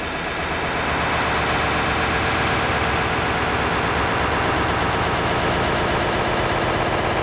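Dense, steady wash of hissing static-like noise from a noise-music track, swelling during the first second and then holding steady.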